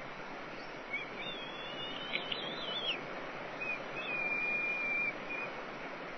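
High, thin whistled calls of a bald eagle over a steady background hiss. A wavering call starts about a second in and lasts about two seconds, then comes a single held whistle of about a second.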